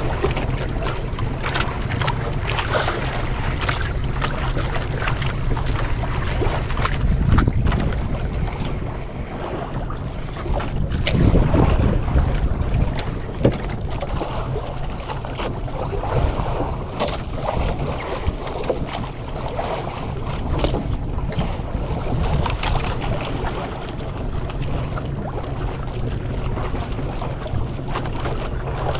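Wind rushing over the microphone aboard a small fishing boat at sea, over a steady low rumble of boat and water noise. The noise swells louder about seven and again about eleven seconds in, with a few scattered small knocks.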